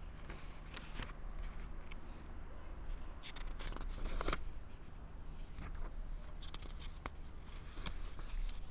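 Faint handling noises: scattered clicks and light rustles over a low steady hum, with a few brief high chirps, about three seconds apart.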